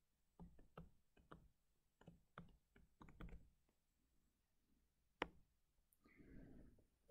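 A stylus tapping and knocking on a tablet screen while handwriting: a run of light knocks in the first three and a half seconds, then one sharper click about five seconds in. A short soft hiss follows near the end.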